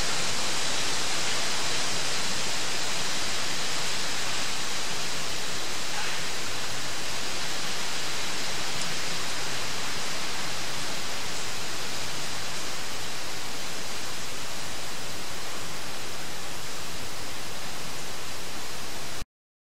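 Steady hiss of a quiet empty room's recording boosted by 30 dB: microphone and recorder noise with nothing else in it. It cuts off suddenly near the end.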